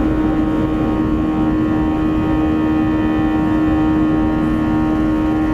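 Airbus A321's twin CFM56-5B turbofan engines at takeoff thrust, heard from inside the cabin: a loud, steady engine sound with a strong steady hum and many steady fan tones over a low rumble, as the aircraft lifts off and begins its climb.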